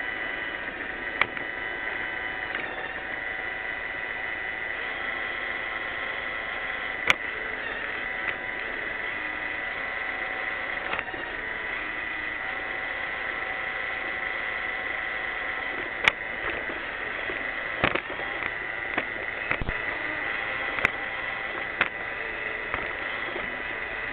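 Roomba 600-series robot vacuum running: a steady motor whine and brush hum, with several short sharp knocks scattered through it.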